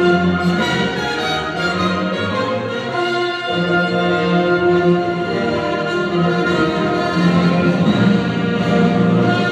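Orchestral background music with bowed strings playing held notes.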